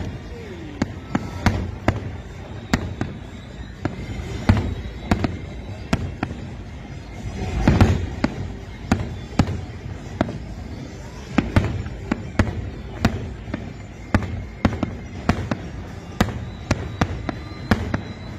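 Aerial fireworks exploding: an irregular string of sharp bangs and cracks, about one or two a second, with a denser, louder volley about eight seconds in.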